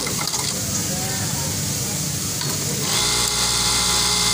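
Industrial sewing machines running. A rough, rattling whir gives way about three seconds in to a steady machine hum with a high hiss.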